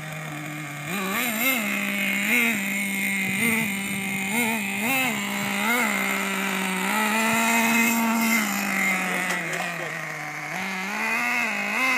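Team Associated MGT 3.0 RC monster truck's small nitro engine buzzing, with a string of short throttle blips, a longer higher rev a little past halfway and another rise near the end.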